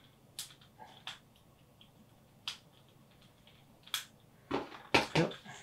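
Small sharp metallic clicks of split ring pliers working steel split rings off a plastic lure's hook hangers. There are single clicks about half a second, one second, two and a half and four seconds in, then a quick cluster of several near the end.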